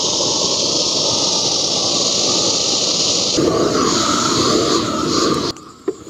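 Large gas roofer's blowtorch burning at full flame, a loud steady hiss, as it scorches the inside of a wooden beehive box to sterilise it. The sound stops suddenly about five and a half seconds in.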